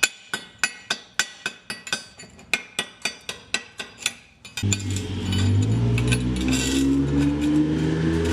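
A chipping hammer striking steel repeatedly, about three or four sharp ringing knocks a second, knocking slag off fresh 7018 stick welds. About halfway through the knocking stops and a steady sound with slowly rising pitch takes over.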